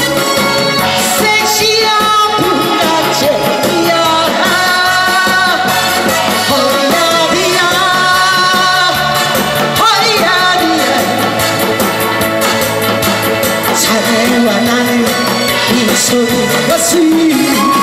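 A woman singing a Korean trot song into a handheld microphone, amplified over a recorded backing track that plays steadily throughout.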